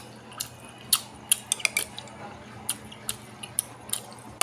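Close-up chewing of stewed bamboo shoots and rice: about ten short, sharp mouth clicks and smacks at an uneven pace, over a faint steady hum.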